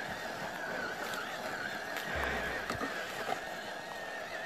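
Steady high whine of a TRX-4 RC crawler's 4600 kV sensorless brushless motor and Sidewinder 3 speed controller as the truck drives, with a few faint snaps and a low thump about two seconds in.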